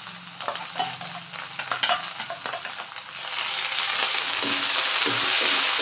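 Chopped green chillies, ginger and garlic frying in hot ghee with browned onions in a metal kadai, stirred with a wooden spatula. A few taps and scrapes come first, then the sizzle swells loudly about three seconds in.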